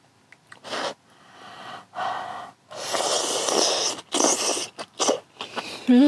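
A person eating, breathing hard through the mouth around a mouthful of food: a series of breathy puffs and sharp intakes of air, one longer one about three seconds in, then a short hummed 'mm' at the very end.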